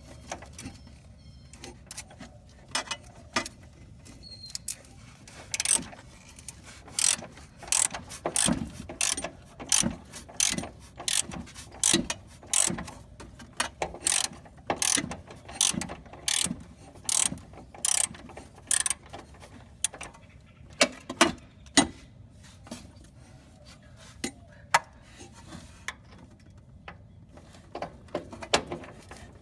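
Hand ratchet clicking in short, irregular runs with pauses in between, as fasteners are turned.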